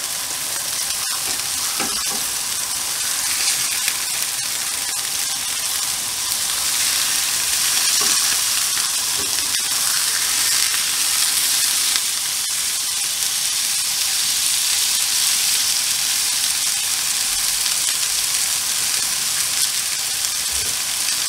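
Minced-meat burger kebab patties sizzling steadily in a hot, lightly oiled ridged grill pan. The sizzle grows a little louder about eight seconds in, as the patties are turned over with tongs.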